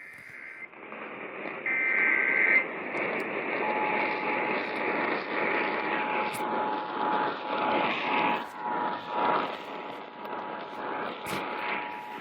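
Emergency Alert System test heard through an AM radio's heavy static. Two short bursts of the digital header's steady paired tones end about half a second and two and a half seconds in. About a second later the steady two-tone attention signal starts and holds.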